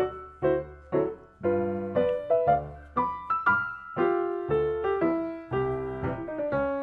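Background piano music: a melody of notes struck about two to three a second, each ringing and fading before the next.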